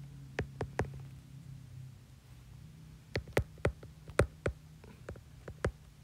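Sharp, irregular clicks of a stylus tip tapping and lifting on a tablet's glass screen during handwriting, in small clusters. A low hum fades away in the first second or two.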